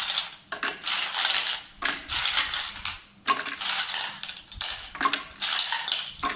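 Ice cubes clattering as they are tipped in handfuls into the hopper of an electric ice crusher, about six rattling pours in a row.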